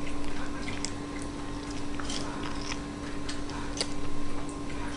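Toddler's mouth sounds while she eats and sucks food off her fingers: scattered small wet smacks and clicks at an irregular pace.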